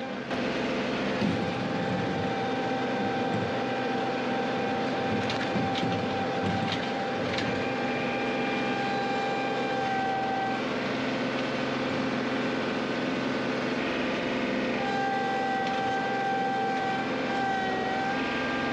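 John Deere compact tractor's diesel engine running as the tractor drives, with a steady high whine over it that drops out about ten seconds in and comes back a few seconds later.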